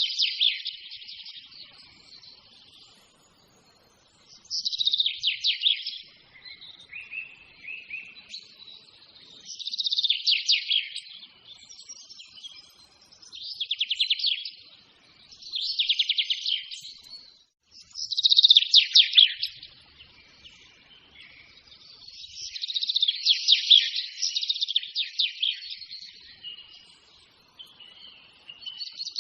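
A songbird singing in repeated short, high-pitched phrases of rapid trilled notes, one every few seconds, with brief pauses between them.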